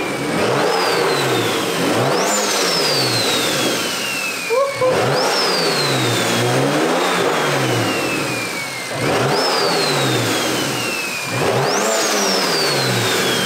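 BMW N55 turbocharged inline-six with a big top-mount single turbo, revved in about six quick blips. On each blip the turbo whistle rises sharply, then falls slowly as it spools down.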